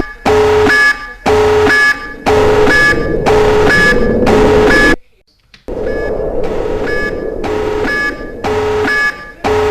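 Nuclear alert alarm sounding as a loud pulsing tone, about one beep a second, with a brief break about five seconds in before it resumes.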